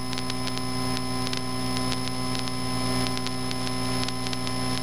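Steady electrical hum and buzz on the aircraft's intercom recording line, several fixed tones over a hiss with faint ticking, starting abruptly just before and holding unchanged.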